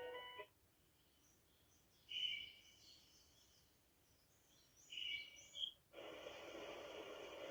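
Sunrise alarm clock's built-in nature sounds playing through its small speaker. A melody of steady notes cuts off about half a second in, short bird calls come about two and five seconds in, and a new, denser recording starts about six seconds in.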